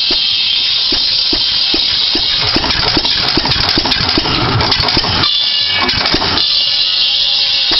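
7 hp Sattley hit-and-miss engine driving a buzz-saw rig, with a steady knocking beat about two and a half times a second. About two seconds in, the blade cuts into a log and adds a harsh sawing noise for around three seconds.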